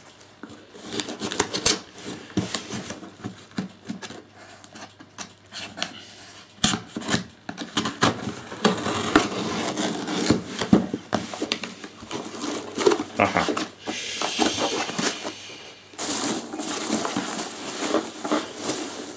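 A cardboard parcel being opened by hand: a small knife scraping along the packing tape, tape peeling off the cardboard and the flaps being handled, with scrapes and clicks throughout. Near the end, hands rummage through polystyrene packing peanuts in a steady rustle.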